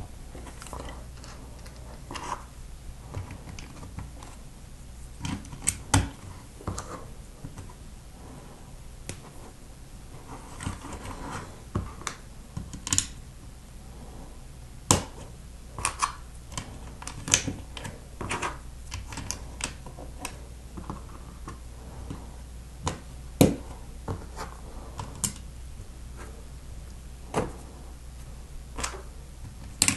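Plastic Lego bricks clicking and snapping as they are pressed onto a model by hand, in irregular sharp clicks with small handling noises between them.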